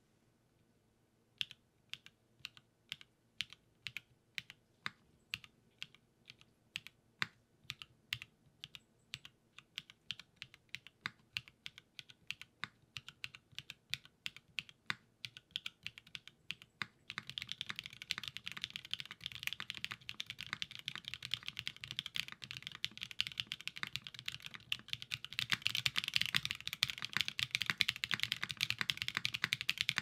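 Custom mechanical keyboard with Strawberry Milk linear switches, a carbon-fibre half plate and PBT keycaps being typed on. Separate keystrokes start about a second and a half in and come faster, then from about halfway it becomes continuous fast typing, which gets louder and harder near the end.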